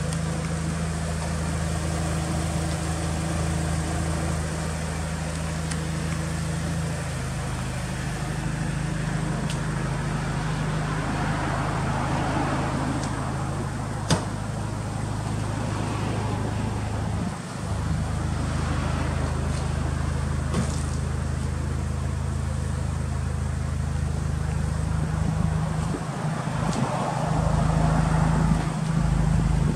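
Mitsubishi Lancer Evolution IX's turbocharged 4G63 inline-four idling steadily through an aftermarket muffler and sports catalytic converter, a little louder near the end. A single sharp click about halfway through.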